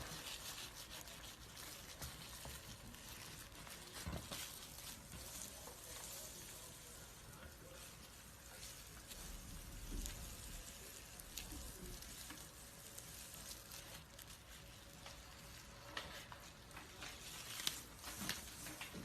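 Faint, continuous crinkly crackling and rustling of a snake's old skin loosening and peeling off as it sheds, with scattered small ticks and a few sharper clicks.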